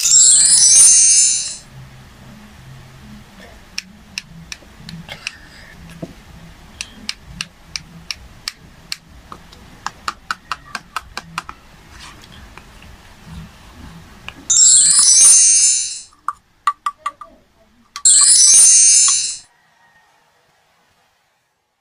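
Three short, loud bursts of a sparkly chime sound effect: one at the start, one about two-thirds in and one a few seconds later. Between them come quiet clicks and taps as a crayon is handled on a plastic toy cutting board, with a quick run of sharp ticks in the middle. Silence near the end.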